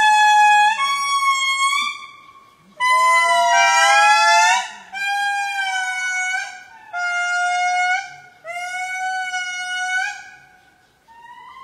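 Lemurs giving a series of about five long, clear-pitched calls, each a second or two long with short gaps between, two voices overlapping in one of them.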